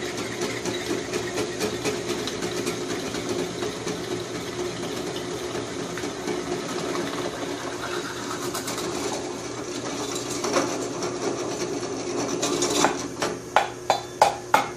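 Benchtop drill press running steadily as its bit drills a hole in a small metal part. Near the end come a quick run of sharp clicks and knocks as the work comes off the bit.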